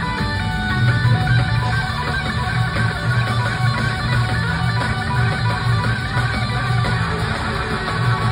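Live blues-rock band playing loudly, with electric guitar to the fore over a strong, pulsing bass line.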